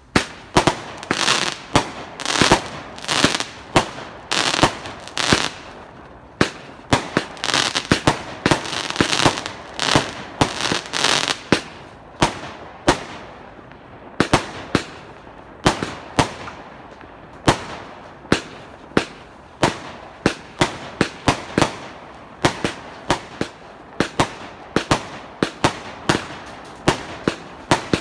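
Emperor Fireworks' Thor's Hammer 42-shot firework cake firing its shots one after another: a long run of sharp bangs, about one to two a second. Over the first ten seconds or so a continuous hiss fills the gaps between the bangs.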